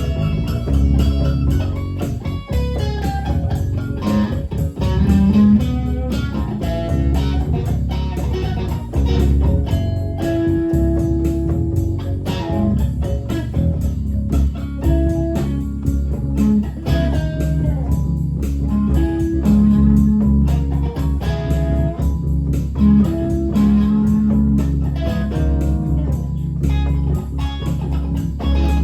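Live band playing an instrumental passage with no vocals: guitar picking out a bluesy lead over a bass line.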